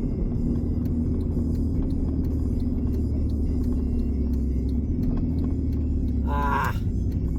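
A 2009 Honda Fit's four-cylinder engine and leaking exhaust heard from inside the cabin while driving: a steady low drone and rumble. A person gives a short "ah" near the end.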